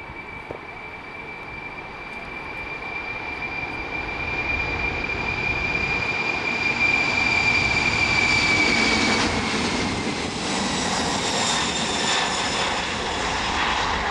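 Boeing 747 freighter's four turbofan engines at take-off power during the take-off roll: a steady high fan whine over a growing roar, louder as the jet comes closer. About nine seconds in the whine fades and a broad roar takes over as the aircraft passes and lifts off.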